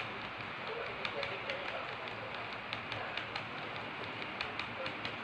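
Model freight train's wagons rolling along the track: a steady rolling hiss with quick, uneven clicks of the metal wheels over the rails.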